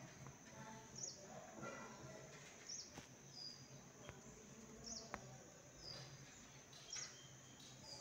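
Near silence: faint room tone with faint high-pitched chirps coming in pairs about every two seconds, and a few soft ticks.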